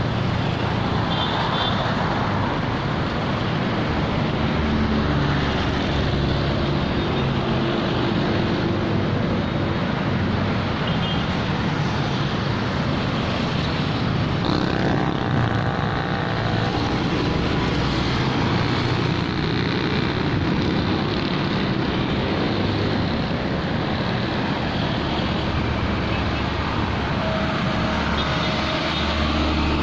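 Steady vehicle engine and traffic noise on a busy city street, with no break.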